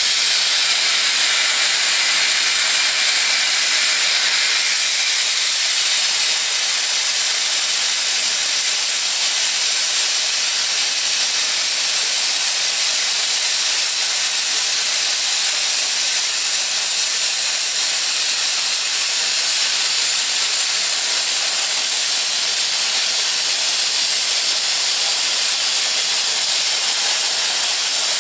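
Plasma cutter torch hissing steadily as it cuts, an unbroken high-pitched rushing hiss.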